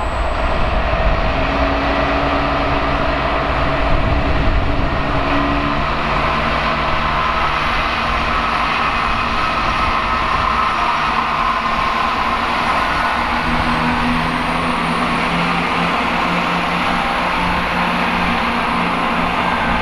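Transport for Wales diesel multiple unit moving slowly through the station under power: a loud, steady engine hum whose note steps up in pitch about two-thirds of the way through as the train gathers speed.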